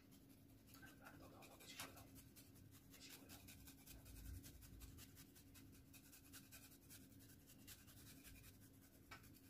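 Faint rasping of a block of khoya (dried milk solids) being grated on a small metal hand grater, a quick run of short scraping strokes.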